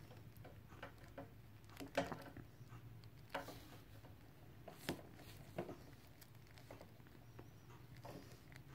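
Faint, scattered clicks and small scrapes of hands working at a tough plastic cable tie on a power cord, about half a dozen irregular ticks.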